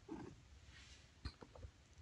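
Near silence with faint sounds from a nursing mother cat and her kittens: a brief soft low sound at the start, then a few small clicks just over a second in.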